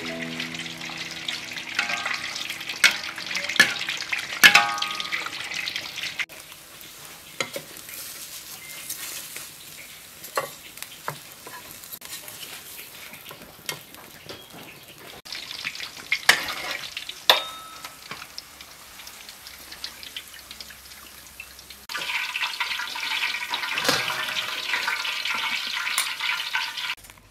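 Pork frying in hot oil for crispy pork, sizzling with crackles and pops in three stretches, with quieter gaps between them broken by a few sharp clicks.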